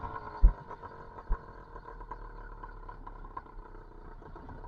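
Small two-stroke YD85 bicycle engine with an expansion-chamber pipe running steadily at low throttle. Two sharp thumps come about half a second and a second and a half in.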